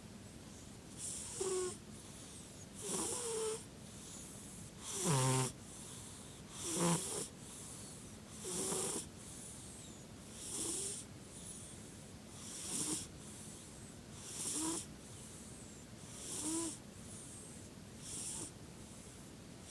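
Snoring in a steady rhythm: ten noisy snoring breaths, one about every two seconds, the loudest about five seconds in.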